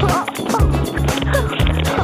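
Background music with a heavy, repeating bass line and a wavering melody above it.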